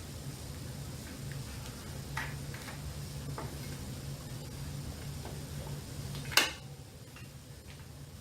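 Small ticks and taps of hardware being handled and fitted, with one sharp clack about six seconds in, over a steady low hum.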